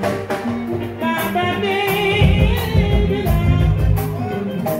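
Live Senegalese mbalax band playing, with a male singer's voice on the microphone over the bass and percussion.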